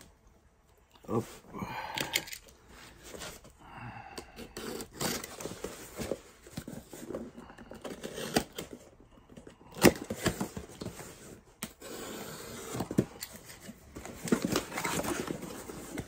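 Cardboard shipping box being opened by hand: a box cutter slits the packing tape, and the tape and flaps are scraped and torn apart in irregular scratches and rustles, with sharp clicks, the loudest about ten seconds in.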